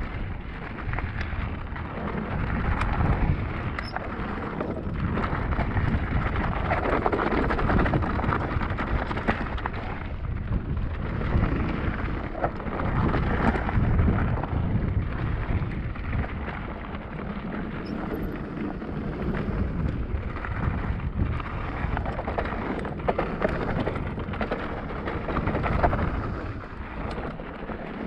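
Cube Stereo Hybrid 160 e-mountain bike ridden along a dirt trail: a continuous rumble of tyre noise and wind buffeting the microphone, swelling and easing with speed.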